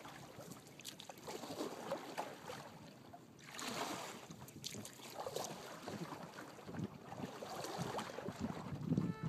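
Kayak paddle dipping and pulling through river water in uneven strokes, with splashing and dripping, and some wind on the microphone.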